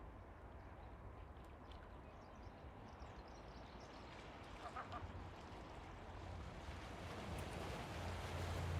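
Seaside ambience of gentle waves washing ashore, with a wash of wind growing louder toward the end, and faint bird calls, one briefly about halfway through.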